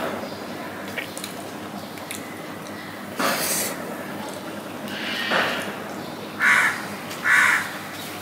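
A crow cawing twice, two short harsh calls close together near the end. A brief hissing noise about three seconds in.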